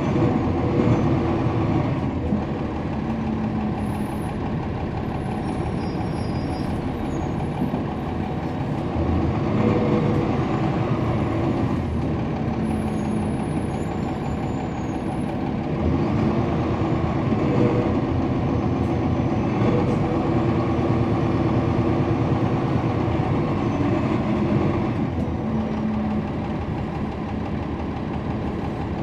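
A 2011 NABI 40-SFW transit bus's Cummins ISL9 diesel engine and ZF Ecolife automatic transmission, heard from inside the bus while it runs. The engine sound rises and falls a little as the load changes, louder about a third of the way in and again past halfway.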